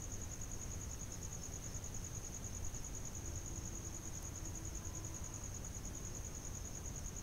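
A cricket trilling steadily: one unbroken, high-pitched, rapidly pulsing buzz, over a faint low background rumble.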